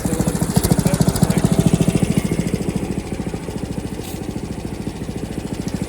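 Small gasoline engine of a Frontier OS23 portable bandsaw sawmill running steadily, a little louder in the first half and easing slightly about halfway through.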